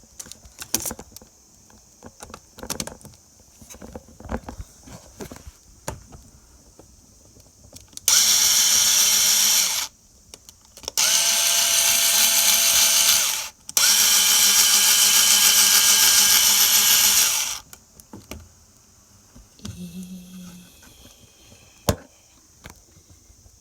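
Electric drill running in three bursts of a few seconds each, spinning up and winding down each time, with scattered light knocks and clicks around them.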